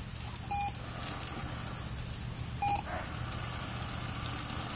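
Two short electronic beeps about two seconds apart, each a clear pitched tone: the signal tone of a remote dog-training device.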